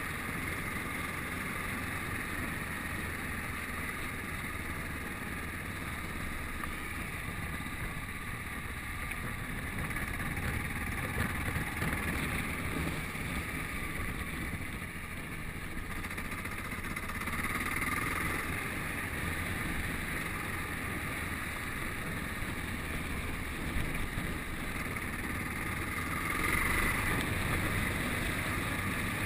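Yamaha XT660Z Ténéré's single-cylinder engine running steadily under way, mixed with wind rush on the camera microphone; the engine note swells briefly a few times.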